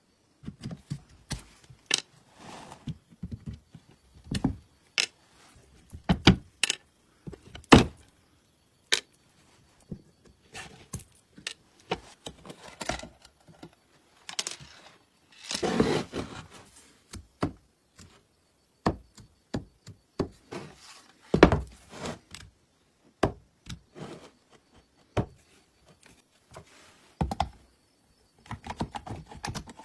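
Irregular knocks, clicks and thunks of tools and metal parts being handled while an old household sewing machine is worked on, with a longer rubbing or scraping noise about halfway through.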